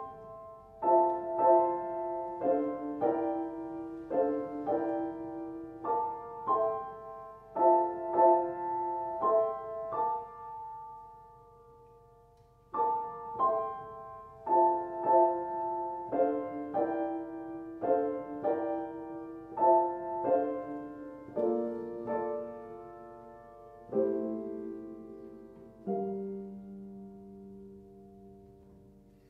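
Grand piano playing a solo passage of chords with no cello, one chord left to ring for about two seconds near the middle before the playing resumes. Toward the end it slows to a few low notes that ring out and die away.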